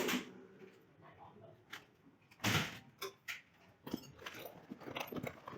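Irregular knocks and clicks from hard objects being handled, the loudest about two and a half seconds in.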